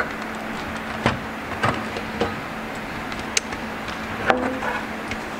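Sheet-metal lid of a DVR case being worked loose and lifted off, with several sharp clicks and knocks as it comes free of the side grips, over a steady low hum.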